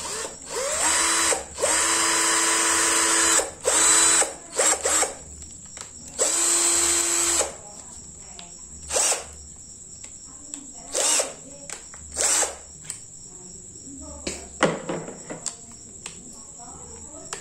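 NRT Pro 20 V cordless drill, a brushed-motor model, running in short trigger bursts while turning a flexible shaft extension. Each run rises in pitch as the motor spins up and then stops. The longest runs come in the first half, followed by a few brief ones.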